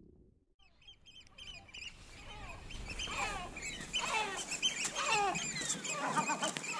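Great black-backed gulls and oystercatchers giving repeated alarm calls, starting about a second in and growing louder and busier. The birds are agitated at a person near their nests.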